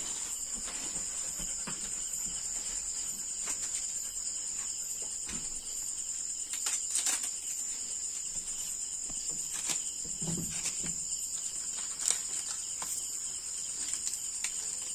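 Steady high-pitched chorus of night insects, with a few scattered clicks and rustles as charred banana-leaf wrappings are pulled off grilled fish.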